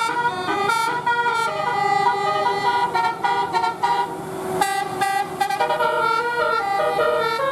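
A bus's Basuri multi-tone musical air horn (a 'telolet' horn) playing a quick melody, its bright horn notes changing pitch every fraction of a second.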